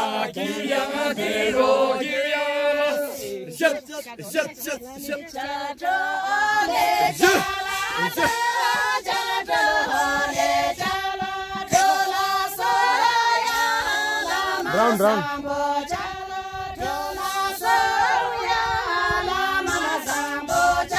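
A group of women singing a folk song together without instruments, mostly on one shared melody, with long held notes.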